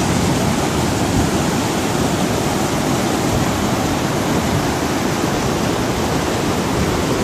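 A steady, loud rushing noise: an even hiss with no tones or rhythm in it.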